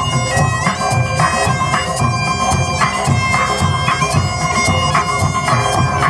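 Highland bagpipes playing a stepping melody over their steady drones, with band accompaniment pulsing underneath in a live performance.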